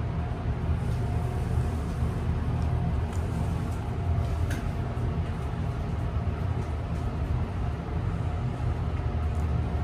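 Steady low rumble of a high-speed Westinghouse traction elevator cab, modernized by Schindler, travelling upward, with a faint steady whine.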